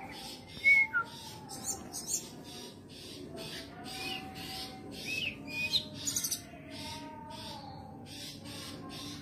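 Female brown-chested jungle flycatcher giving short, sharp call notes, the loudest about a second in and again between five and six and a half seconds in: the call of a female in breeding condition, used to draw a male. Behind it runs a fast, even pulsing, about three pulses a second, with long, low, slowly wavering tones.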